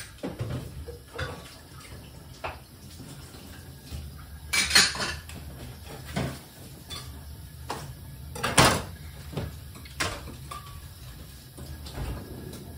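Dishes and utensils clinking and knocking in a kitchen sink as they are washed by hand, in scattered clatters, the loudest about four and a half and eight and a half seconds in. A steady low hum runs underneath.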